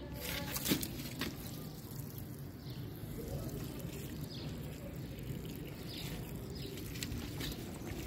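Water running from a garden hose into a flooded plant pot, a steady low pouring and splashing into standing muddy water. A couple of short knocks about a second in.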